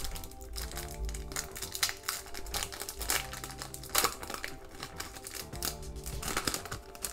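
Foil trading-card pack wrapper crinkling and tearing as it is ripped open by hand, with the sharpest crackles about two and four seconds in, over background music.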